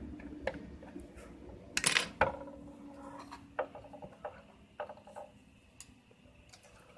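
Scattered light clicks and taps of small metal tools working on an LED module's pad, the loudest cluster about two seconds in.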